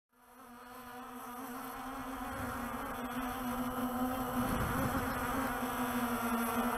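A Walkera TALI H500 hexacopter's six rotors buzzing steadily like an angry bee swarm, picked up by the drone's own camera. The buzz grows louder over the first couple of seconds as the drone climbs, with a brief low rumble about four and a half seconds in.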